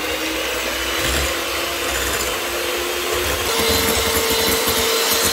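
Mandine electric hand mixer whipping egg whites in a glass bowl: the motor runs with a steady whine over the whirr of the beaters. About three and a half seconds in, the whine steps up to a higher pitch.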